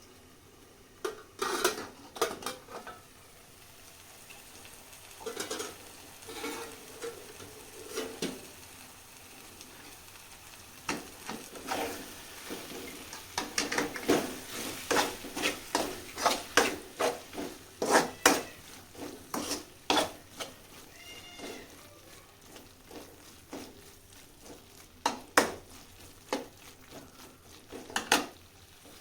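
A spoon stirring tomato chutney frying in a pan on low heat, scraping and knocking against the pan in irregular strokes that come thickest in the middle, over a faint sizzle.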